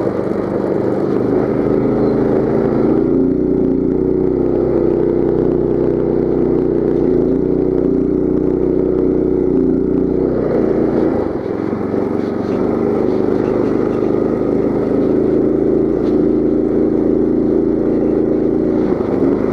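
Coleman CT200U mini bike's single-cylinder engine running steadily under throttle while riding. It eases off briefly about eleven seconds in, then picks back up.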